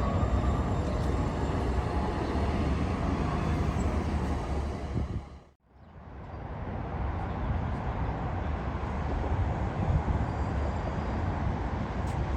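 Steady rumbling noise of a moving vehicle. About halfway through it cuts out to silence for a moment, then comes back much the same.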